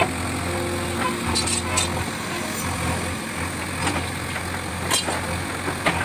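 JCB 3DX backhoe loader's diesel engine running steadily while its front bucket scoops and lifts broken brick rubble, with a few scattered knocks and clatters of bricks.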